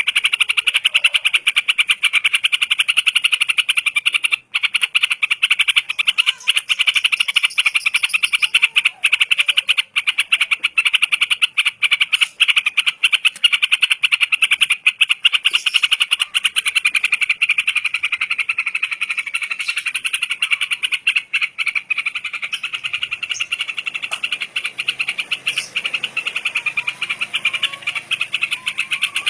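A fast, unbroken pulsing trill, many pulses a second, held steadily throughout and easing slightly in the last third. A few short, faint call notes sound below it near the end.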